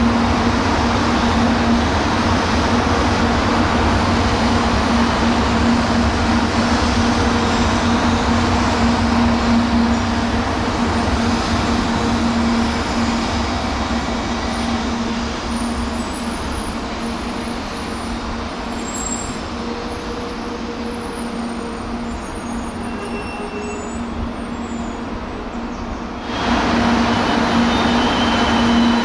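Shinkansen train noise: a steady, loud rushing with a constant low hum. It eases off somewhat through the second half, then breaks off abruptly into a louder stretch of the same noise about 26 seconds in.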